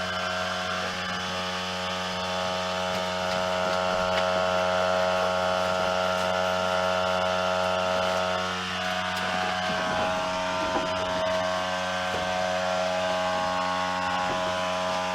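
Diesel engine of a 1957 Volvo TL22 army truck running at a steady idle, an even mechanical hum with a slight change in its upper tone a little past halfway.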